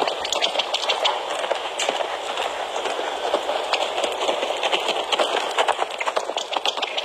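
A horse's hoofbeats on dirt as it canters circles under a rider, a run of irregular thuds over a steady hiss.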